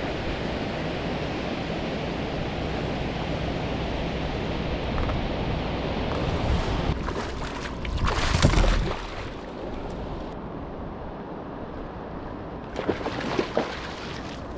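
A hooked salmon thrashing and splashing at the surface beside a kayak, loudest about eight seconds in and again in a few sharp splashes near the end, over a steady rush of wind and water.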